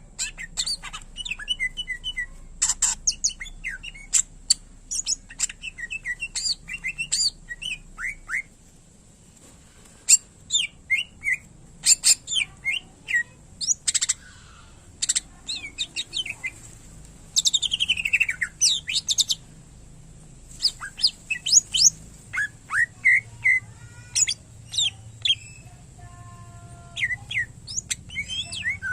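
Greater green leafbird (cucak ijo) singing a fast, varied run of chirps, trills and whistles, laced with mimicked calls of other birds. The song comes in busy bursts with two short pauses, and a long falling whistle a little past the middle.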